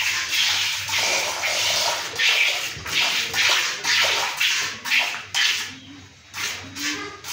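Cow being milked by hand: jets of milk squirt into a bucket in a rhythmic hiss of spurts, about two a second, as the hands squeeze the teats in turn.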